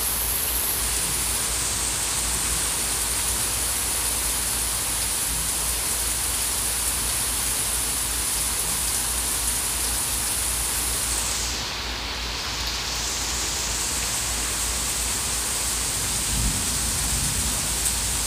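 Thunderstorm rain pouring down in a steady hiss, its highest part thinning briefly about twelve seconds in.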